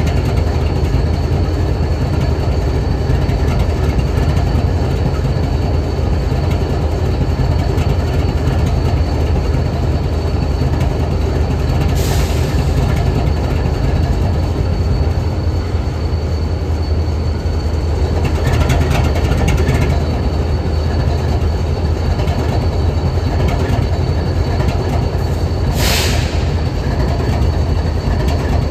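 BNSF diesel-electric locomotive idling steadily: a low, even engine rumble with a faint steady high whine. Two short hisses come about twelve seconds in and again near the end.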